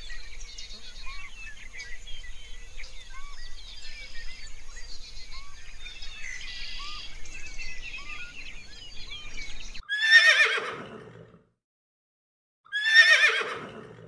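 A background of quieter chirping, then a horse whinnying twice, about three seconds apart. Each whinny is loud and falls in pitch.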